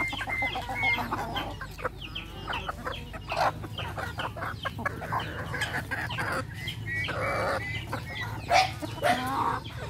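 A mixed flock of free-range chickens clucking and calling as they feed, with many short sharp clicks among the calls and a few louder calls about three and a half seconds in and near the end. A steady low hum runs underneath.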